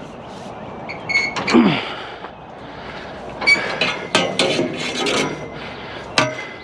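Long metal poles clanking and knocking as they are bent by hand, with a cluster of sharp metallic knocks past the middle and a single sharp clank near the end.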